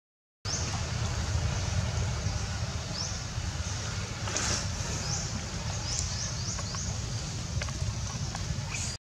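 Outdoor ambience: a steady low rumble with a scatter of short, high, rising chirps and one brief rustle about halfway through.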